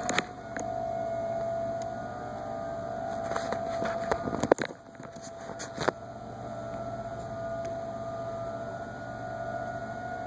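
Federal Signal 2001 outdoor warning siren sounding a steady tone that holds its pitch, swelling and fading slightly. A few sharp clicks and knocks come between about three and six seconds in.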